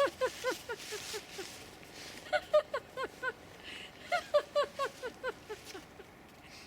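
High-pitched laughter in three quick bouts of short 'ha' syllables, about five a second, each syllable dropping in pitch, with short pauses between bouts.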